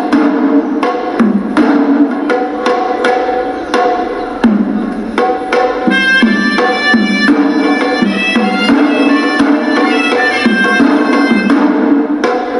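Hewisi temple music: Sri Lankan ritual drums beating a dense, fast rhythm under a reedy horanewa shawm melody, which sounds out more strongly and higher from about halfway through.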